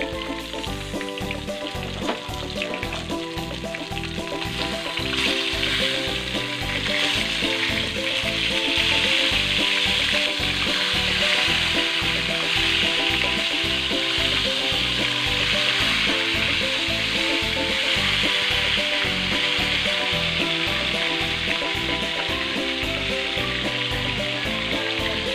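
Maya-maya (red snapper) fish steak sizzling as it fries in hot oil in a frying pan. The steady sizzle grows louder about five seconds in and stays strong.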